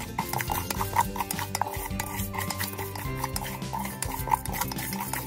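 Wooden spatula stirring raw rice grains in a stainless steel pot: a steady run of irregular scraping and rattling as the grains are pushed across the metal.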